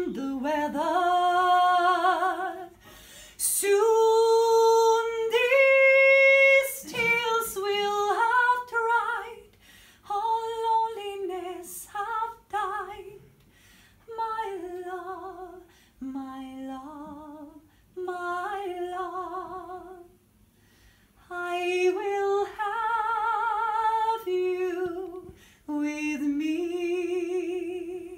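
A woman singing solo without accompaniment: phrases of held notes with a clear vibrato, broken by short pauses for breath.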